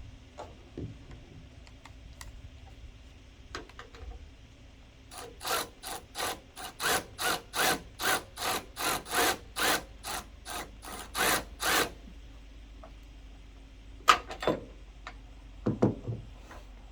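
A hand tool worked in quick rasping back-and-forth strokes, about two and a half a second for some seven seconds, during the tailgate assist install. A sharp metallic click follows, then two dull knocks near the end.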